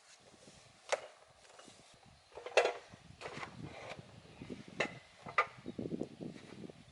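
Irregular wooden knocks and clatter, about five sharp strikes with the loudest a few seconds in, and rustling and scraping between them, as sawmill parts and their packing are handled.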